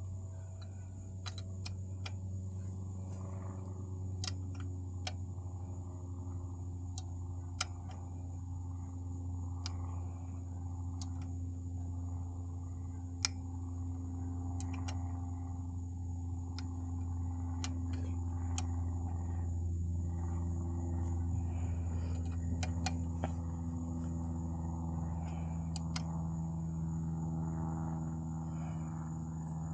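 Scattered sharp clicks and taps of hand tools working on a motorcycle's kickstand safety switch, at irregular intervals, over a steady low hum.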